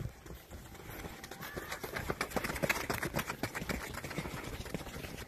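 Footsteps of several runners sprinting on a paved path: many quick, overlapping footfalls, loudest in the middle.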